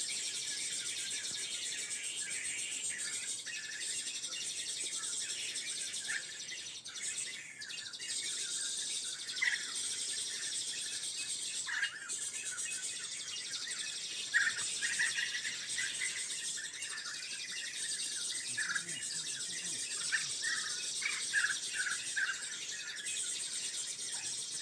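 Small forest birds chirping in short scattered notes over a steady, high-pitched insect drone.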